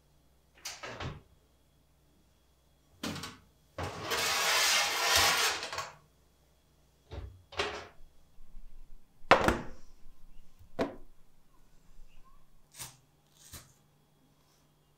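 Kitchen handling sounds: a string of short knocks and clatters, with a rush of noise lasting about two seconds, beginning about four seconds in.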